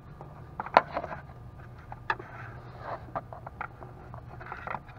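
Irregular clicks and light knocks of handling: a long screwdriver and test-light lead being worked down into an engine bay and touched to metal, with a sharp click about a second in. A faint low hum runs underneath.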